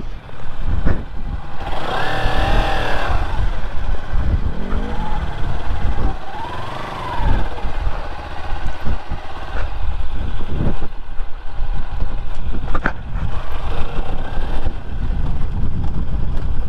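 Sport motorcycle running under way, with heavy wind buffeting on the microphone. A few brief rising-and-falling tones stand out about two seconds in and again around five to seven seconds in.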